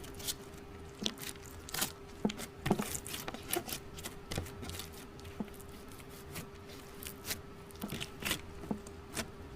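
Slime being squished and worked by hand, giving irregular small sticky pops and crackles with a faint steady hum underneath.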